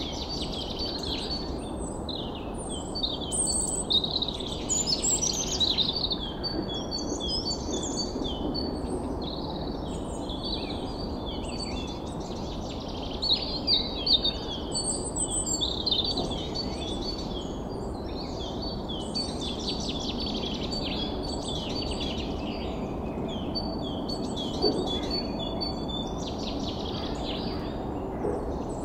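Many small birds chirping and twittering at once, a dense chorus of short calls, over a steady low rushing background noise.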